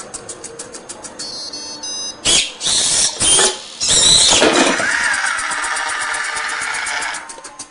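Servo motors of a small robot's gripper arm buzzing and whining in several loud bursts as the arm swings up with a can, then a steadier whine for a few seconds. Background music with a quick regular beat plays throughout.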